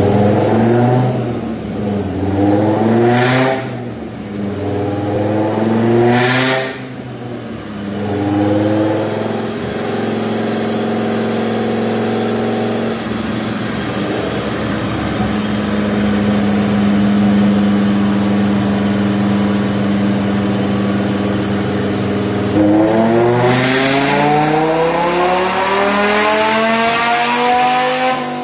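Dodge Viper GTS 8.0-litre V10, fitted with ported heads and a performance cam, running on a chassis dyno: it is revved up and down three times, held at a steady speed for about twelve seconds, then makes a long wide-open-throttle pull that climbs steadily in pitch for about six seconds near the end.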